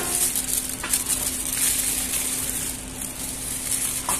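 Clear plastic toy packaging crinkling and rustling as it is handled, a continuous crackle over a steady low hum.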